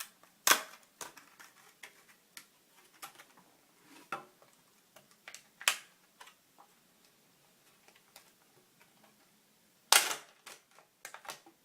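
Plastic retail packaging of new laptop RAM modules being opened and handled: scattered sharp clicks and snaps, the loudest about half a second in and again near the end.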